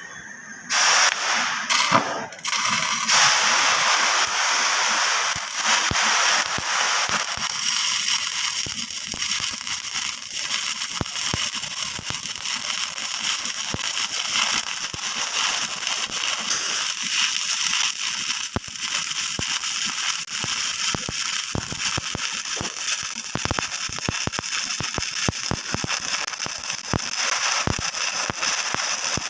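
Stick (shielded metal arc) welding with a 3.15 mm electrode. A few short crackles as the arc is scratched into life about a second in, then the arc's steady crackle as the bead is run, with the current set correctly.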